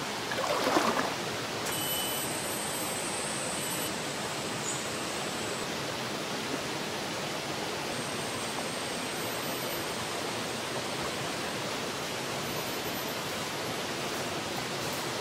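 Steady rushing of a forest stream, an even unbroken wash of water noise with faint high steady tones over it. A brief swishing sound about a second in.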